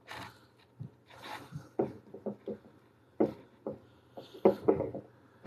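Hands working clay onto a glass bottle on a wooden table: an irregular string of short rubbing and tapping noises, with a few sharper knocks in the second half, over a faint steady low hum.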